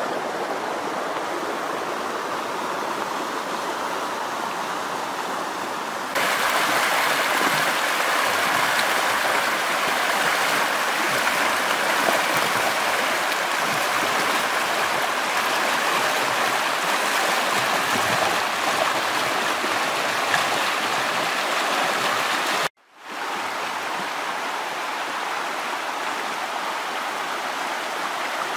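Shallow river rapids rushing over rocks: a steady rush of water that gets louder after a cut about six seconds in, broken by a brief drop to silence at another cut about three-quarters of the way through.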